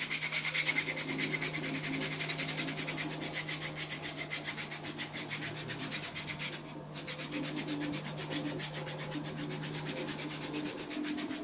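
Foot file with an abrasive face rasping quickly back and forth over a bare heel in rapid, even strokes, with a brief pause about seven seconds in. It is filing away hardened skin that a soda and hydrogen-peroxide soak has softened.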